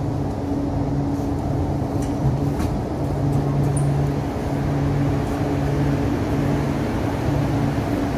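Steady machinery hum with a low droning tone, the cold store's refrigeration plant running. A few faint knocks come as the heavy insulated sliding door is pulled open, about two to three seconds in.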